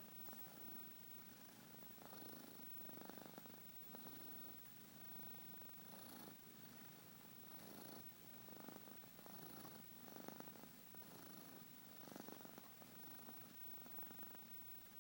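A cat snoring softly, a faint raspy snore on each breath, about one every two seconds.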